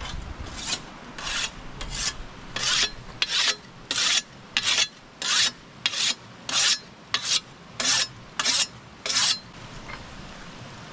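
Rasping scrape strokes, about fourteen, evenly paced at roughly one and a half a second. They stop about nine seconds in.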